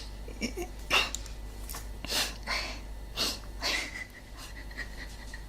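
A streamer's quick breathy sniffs and breaths, half a dozen in a row, with the loudest about a second in. A faint steady high tone sounds during the second half.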